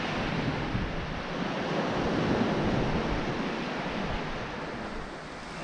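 Sea waves washing onto the shore: a rush of surf that swells about two seconds in and slowly ebbs.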